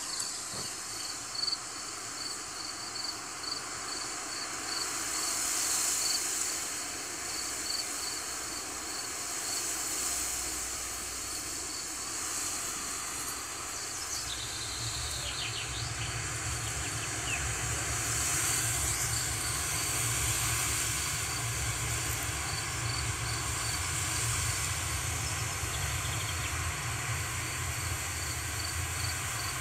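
Wind blowing through grass, swelling and easing in gusts, with a low rumble of wind on the microphone from about halfway. Insects chirp steadily in a regular pulse throughout.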